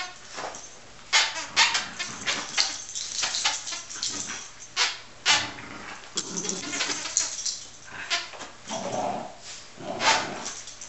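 Two small dogs, a miniature schnauzer and a Yorkshire terrier, play-fighting over a toy: a quick string of sharp yips and short barks.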